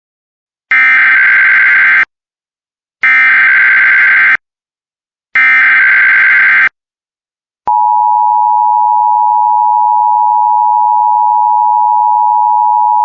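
Emergency Alert System SAME header: three identical bursts of screeching data tones, each just over a second long, with short gaps between them. About 8 seconds in, the loud, steady two-tone EAS attention signal begins, announcing a National Weather Service blizzard warning.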